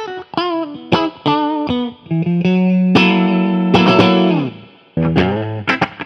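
Electric guitar (a Crews Maniac Sound ST-60 Strat-style guitar) played through a Fender Vibro King tube amp: picked lead phrases, then a long held note about two seconds in that slides down in pitch and fades out near five seconds, before picking starts again.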